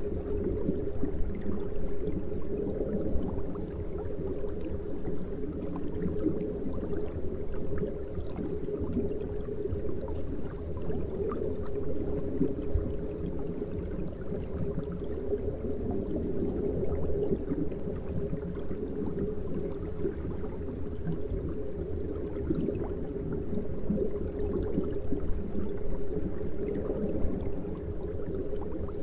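Aquarium water bubbling and running from filters and aeration: a steady, muffled wash of sound with no breaks.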